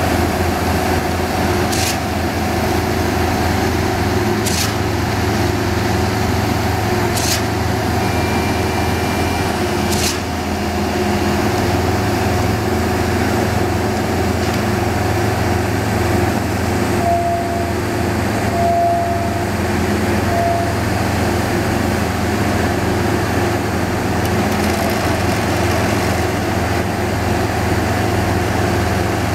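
Diesel engines of concrete pump trucks and paving machinery running steadily as a low drone. Four sharp knocks come about every two and a half seconds in the first ten seconds, and three short beeps sound a little past halfway.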